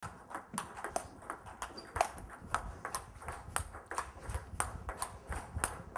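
Table tennis balls clicking sharply off tables and bats in rallies, about three or four quick, irregular clicks a second.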